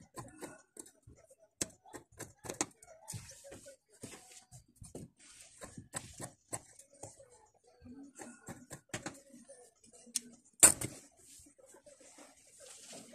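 Scissors snipping through white upholstery fabric: a run of sharp clicks at an uneven pace, with one much louder knock about ten and a half seconds in.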